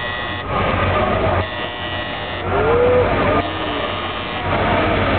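Warning buzzer of the ship's aircraft elevator sounding in one-second blasts about every two seconds, over the murmur of a crowd.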